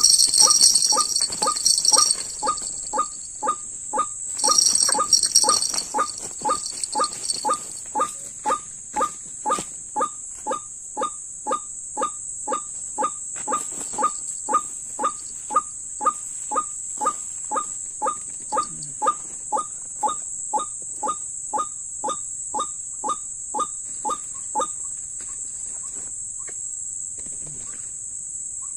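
White-breasted waterhen (dahuk) calling, one short call repeated about twice a second in a long monotonous series that stops about 25 seconds in. A steady high insect whine runs underneath, with louder high buzzing in the first few seconds.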